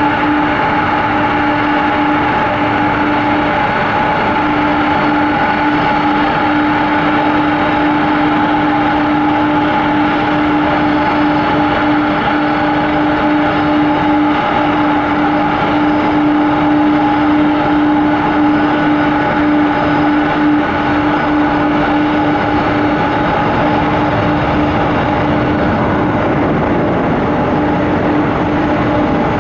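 Jet engines of a UPS McDonnell Douglas MD-11 freighter running steadily, a constant whine over an even rushing noise.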